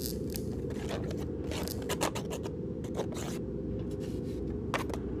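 Short, irregular scraping and scratching sounds against wooden floorboards, over a low steady rumble.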